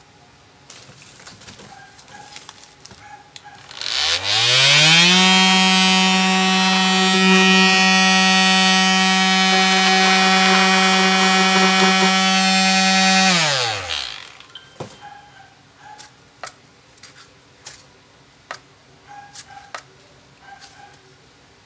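Bosch GSS 18V-LI cordless orbital sander run with no load. Its motor spins up with a rising whine about four seconds in, runs steadily for about nine seconds, then winds down and stops.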